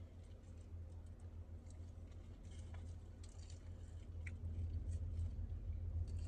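Quiet eating: scattered small crunches and clicks of chewing and handling fried chicken, over a steady low hum.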